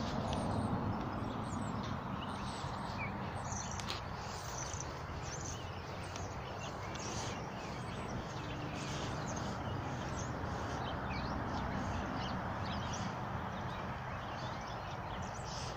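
Birds chirping here and there, many short high calls, over a steady outdoor background hiss.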